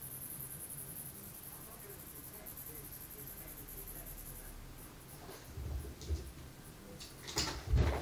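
A cicada's high, pulsing buzz, stopping a little past halfway. Then soft thumps, and near the end a louder scuffle of knocks on carpet as a cat pounces on it.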